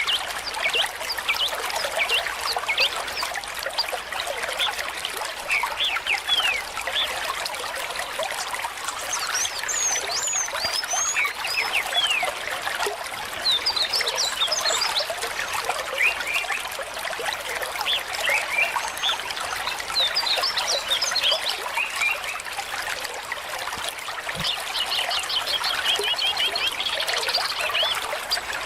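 Water trickling steadily, with small birds chirping in short calls over it and a rapid trill of repeated notes near the end.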